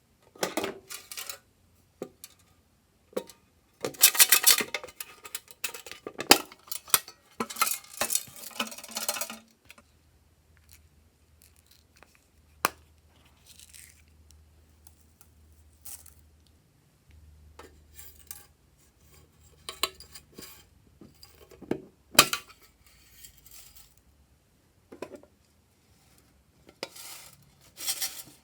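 A utensil scraping and clinking against a bowl as glossy slime is mixed. It comes in irregular bursts: several long scrapes in the first ten seconds, then quieter stretches broken by sharp clicks.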